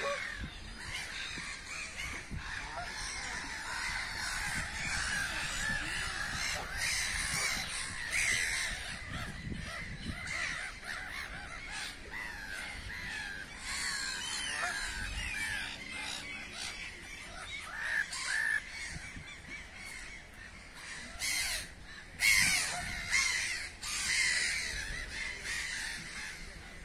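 Many birds calling over one another without pause, short harsh calls following each other quickly. There are a couple of brief louder knocks about three-quarters of the way through.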